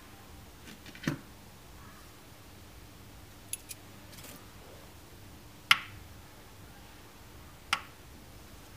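Handling sounds on a digital kitchen scale with a plastic bowl: a soft knock about a second in as the dried seed head is lifted off, a couple of faint ticks, then two sharp clicks. The louder click comes near the middle, and the last click is the scale's button being pressed as its display switches off.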